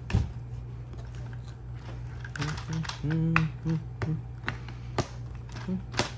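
Irregular sharp clicks and taps of a tool and fingers working at a robot mop's plastic housing and drive motor as it is pried apart. A short hummed voice sounds near the middle.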